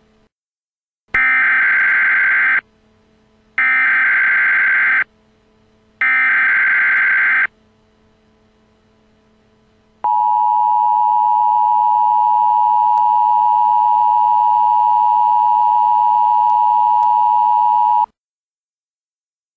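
Emergency Alert System tones announcing a severe thunderstorm warning: three short buzzy data bursts (the SAME header) about a second apart, then the steady two-tone attention signal held for about eight seconds before it cuts off.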